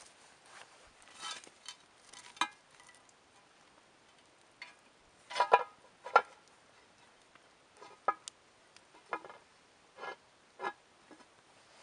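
Cast-iron Dutch oven lid being handled with a metal lid lifter: about ten separate metal clinks and clanks, some ringing briefly, the loudest two about five and a half and six seconds in.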